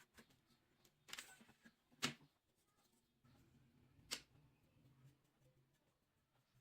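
Near silence with a brief faint rustle about a second in and two sharp clicks, about two and four seconds in, as from small parts being handled.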